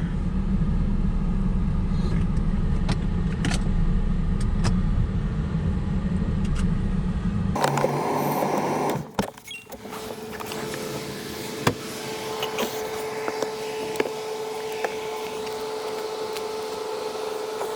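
Car driving, with a steady low road-and-engine rumble inside the cabin. About eight seconds in it gives way to a quieter stretch with a faint steady hum and a few light clicks.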